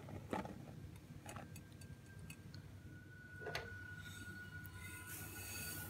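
Faint taps and clicks against a glass mixing bowl as flour is tipped in, with a short soft pouring hiss near the end.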